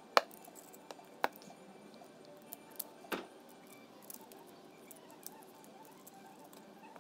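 Handling clicks and clacks of a folding bicycle lock's hinged links being folded up, with a key bunch rattling. There is a sharp click just after the start, another about a second in and a clack around three seconds, with lighter ticks between.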